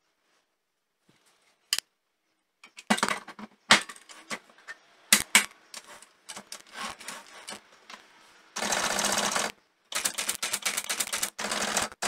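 Olympia SG1 typewriter mechanism: scattered metallic clacks and rattles as the carriage is handled and set back down, then two runs of rapid clicking about a second long and two seconds long near the end.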